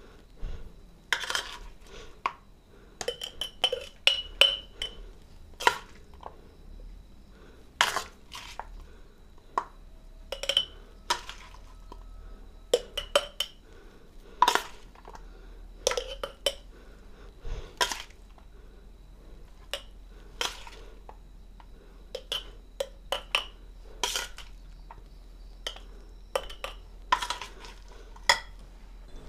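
Steel spoon clinking and scraping against a steel plate and a glass jar as chunky pickle is spooned into the jar: irregular sharp clinks, some ringing briefly.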